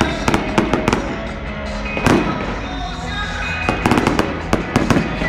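Fireworks going off: a run of sharp bangs and crackles, with a heavier boom about two seconds in and a quick string of bangs near the end.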